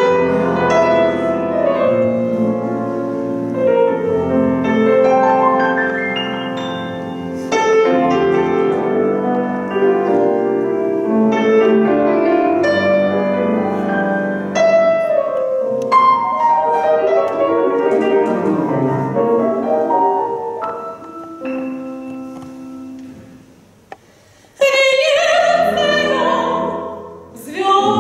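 Grand piano and double bass playing an operetta accompaniment. After a short pause near the end, a soprano voice comes in singing with wide vibrato.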